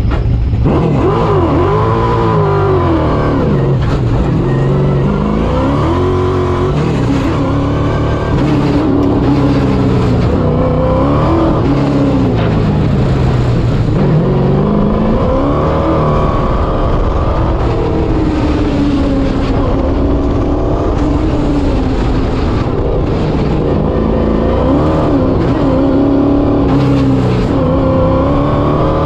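Race car engine pulling hard, its pitch climbing under acceleration and dropping back again and again every few seconds, as on an autocross run through slaloms and corners.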